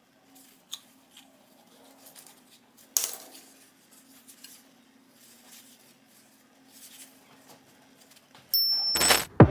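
Gloved hands handling a rubber mallet's head and steel handle: soft rubs and small clicks, with a sharper knock about three seconds in, over a faint steady hum. Near the end, a loud burst of noise about half a second long.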